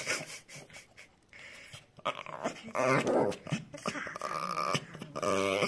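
Small shaggy dog grumbling in several drawn-out stretches from about two seconds in, the clearest one near the end, while its legs and paws are wiped with a wet wipe.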